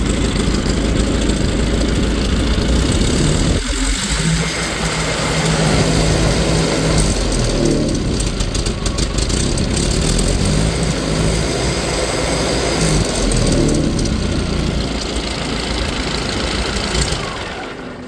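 1954 Ford Jubilee tractor's four-cylinder gasoline engine running steadily just after being started. Its speed rises and falls a little as the governor moves the throttle in and out.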